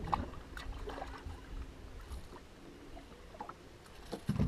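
A hooked perch splashing at the water's surface beside an aluminium boat, with scattered small splashes and knocks. Near the end comes a single heavy thump on the boat.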